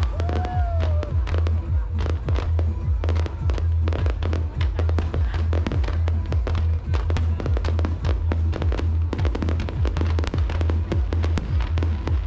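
Fireworks display: a dense, continuous run of crackling pops and bangs, with music playing underneath.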